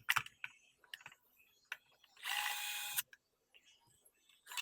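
Screwdriver driving a screw into the console for under a second, among scattered small clicks of parts being handled and fitted back together.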